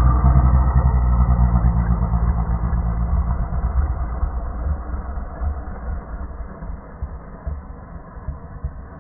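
Dog snarling with bared teeth, slowed down so the growl comes out as a deep, low rumble like an idling engine. It starts loud and fades, growing uneven toward the end.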